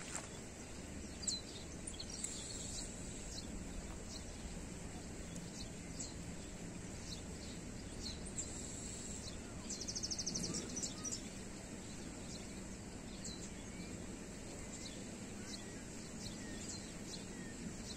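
Outdoor ambience of scattered bird chirps over a steady low background noise, with a short rapid trill about ten seconds in and a single sharp click about a second in.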